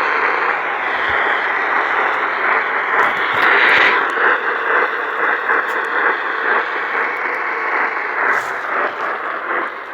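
AM radio reception thick with static: a steady hiss with no clear tones, which turns choppy and crackly from about four seconds in.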